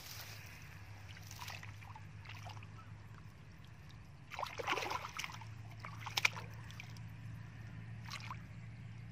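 Hands sloshing and splashing through shallow muddy water while groping for fish, in short irregular splashes over a steady low hum. There is a louder burst of splashing about four and a half seconds in and a sharp splash about six seconds in.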